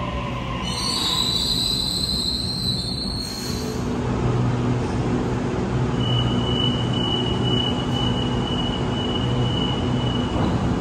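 Double-deck Sydney Trains electric train pulling in and stopping at the platform, running with a steady low hum. Its wheels or brakes give a high squeal from about a second in for a couple of seconds, then a steady high whine sets in about halfway through and cuts off near the end.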